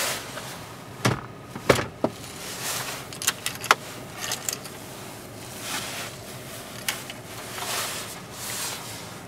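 Steering column of an idling 2003 Mitsubishi Colt being adjusted with its manual tilt lever: several sharp clicks and clunks in the first four seconds as the lever is released and locked and the wheel moves, with the ignition keys jangling. A faint steady hum of the engine idling sits underneath.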